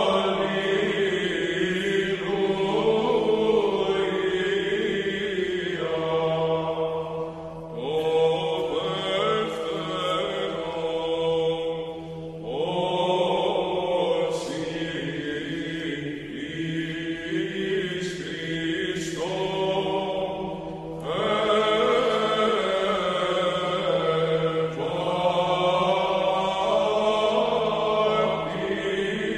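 Background music: a slow, meditative chant sung over a steady low drone, in phrases with short breaks between them.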